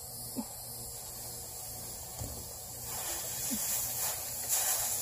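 Lit firework fuse hissing, the hiss building from about three seconds in as the firework begins to ignite.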